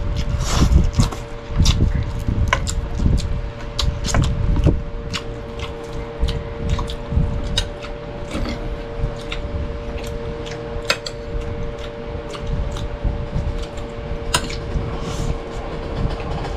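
Close-miked eating sounds: chewing, with many sharp, irregular mouth clicks and light clinks of dishes, over a steady low hum.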